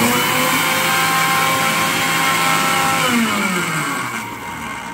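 Electric kitchen mixer grinder running with its steel jar, grinding black and yellow mustard seeds: a loud, steady motor whine over grinding noise. About three seconds in the pitch drops as the motor slows, and the sound eases off toward the end.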